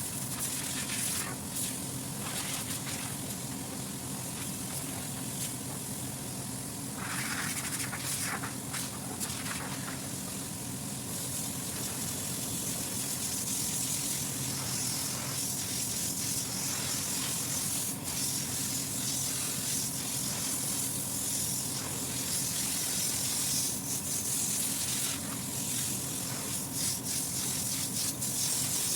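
A steady machine hum with a spraying hiss that starts and stops several times and is heavier over the second half.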